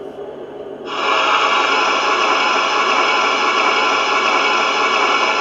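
Sanding sound effect from the sound decoder of an LGB G-scale RhB Ge 4/4 III electric locomotive model, played through the model's speaker: a loud, steady hiss of blown sand that starts about a second in. It sits over a low steady hum.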